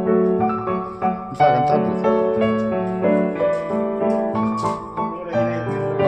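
Background piano music: a melody of held notes over chords.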